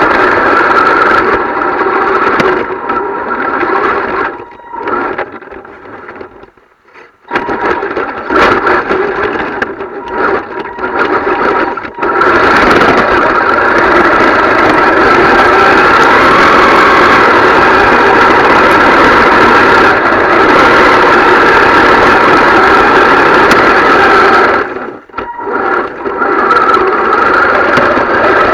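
RC car's motor and drivetrain whining under throttle, cutting in and out. It dies away for a few seconds early on, then holds a long steady full-throttle run before a brief let-off near the end.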